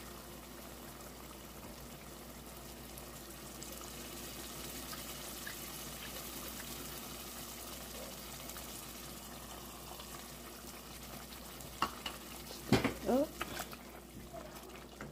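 A pot of seafood sauce with chicken broth just added, cooking on the heat toward a boil with a steady low sizzle. Near the end a few clicks of a utensil against the pot and a brief voice.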